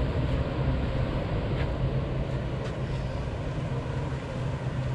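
A steady, low engine drone that runs on unchanged, with a few faint ticks over it.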